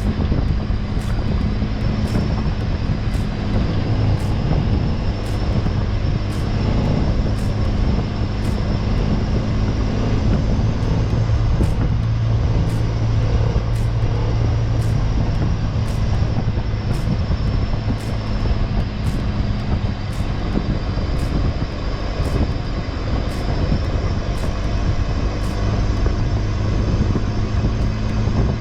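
Four-wheel-drive vehicle driving at a steady pace, its engine and road noise making a constant low drone.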